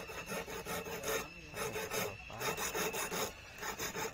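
A small hand file rasping on the thin metal of a handmade eel-fishing hook (ruruhit), shaping it. The strokes come quick, back and forth, in runs broken by short pauses.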